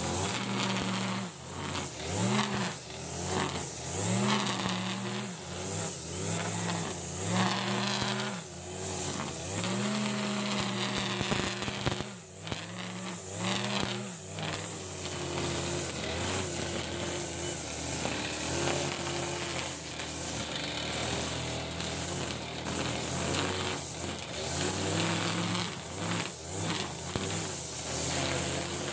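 Backpack brush cutter's small engine running while cutting grass, revving up and dropping back again and again as the throttle is worked, with a steadier stretch in the middle.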